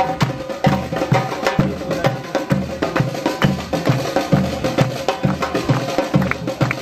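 Street percussion band of large bass drums and snare drums playing a carnival rhythm: steady deep drum beats about two to three a second under fast, sharp stick strokes.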